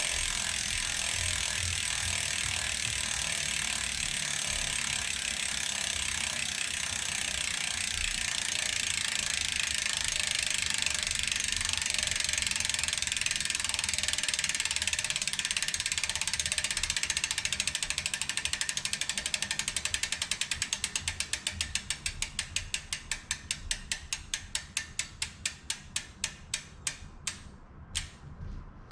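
Hope Pro 4 rear hub freewheeling, its pawls ratcheting as a fast high buzz. About two-thirds of the way through the buzz breaks into separate clicks that come slower and slower as the wheel coasts down, stopping just before the end.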